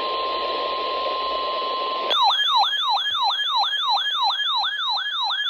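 A steady single-pitch alert tone over radio static, typical of the NOAA Weather Radio 1050 Hz warning alarm, cuts off about two seconds in. A fast electronic yelp siren follows, sweeping up and down about three times a second.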